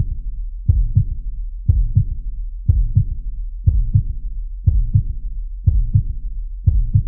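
Heartbeat sound effect: a deep lub-dub double thump repeating steadily about once a second, with a low rumble between beats.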